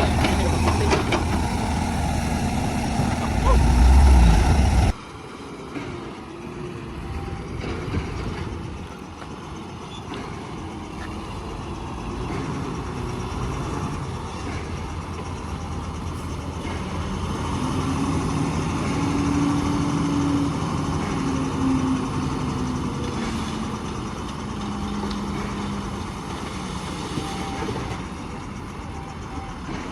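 Heavy construction machinery engines running, with an abrupt change in the sound about five seconds in. Later the engine note rises and shifts in pitch for several seconds, then settles.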